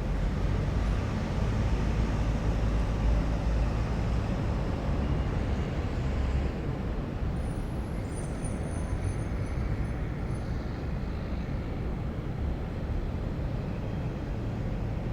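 City traffic ambience: a steady rumble of road vehicles, a little louder in the first half. A faint high-pitched squeak comes about eight seconds in.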